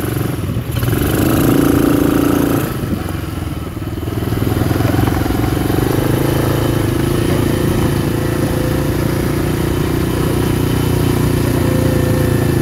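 2017 RPS 125cc Sporty ATV's four-stroke single-cylinder engine running while the ATV is ridden. The throttle eases off briefly about three seconds in, then the engine holds a steady pace.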